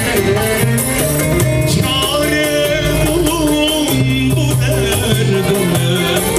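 Loud amplified Turkish popular/folk dance music with a steady beat, held bass notes and a wavering, ornamented melody line.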